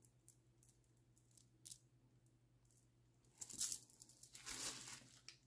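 Plastic bags and bubble wrap crinkling as hands rummage through bagged bead strands, the loudest rustling from about three and a half to five seconds in. Before that, a few faint light clicks and taps.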